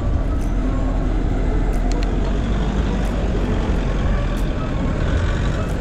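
Steady noise of motor traffic passing close beside a moving bicycle, a dense low rumble with a few faint ticks.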